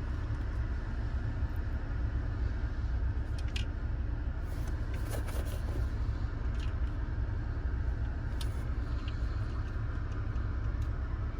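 Steady low engine rumble, like a vehicle idling, with a few faint light clicks.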